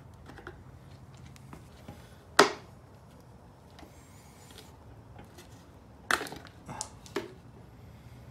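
Hand-work on parts: one sharp knock about two seconds in, then a short run of three or four knocks and clatters around six to seven seconds in. A faint steady hum runs beneath them.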